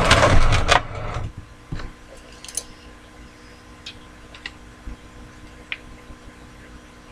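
A clatter of small hard objects being handled for about a second, then a few scattered light clicks and taps.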